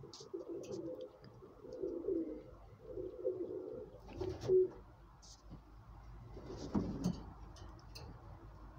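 Racing pigeon cooing: a run of low, wavering coos through the first half, broken by a sharp knock about four and a half seconds in.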